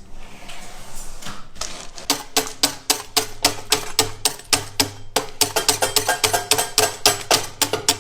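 Background music with a fast, even clicking beat like a wood block over a low steady note, starting about two seconds in after a softer, noisy opening.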